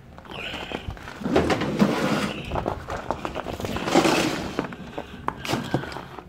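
Shuffling footsteps and rustling, scraping handling noise close to the microphone, a dense run of small clicks and scrapes that fades near the end, over a faint low steady hum.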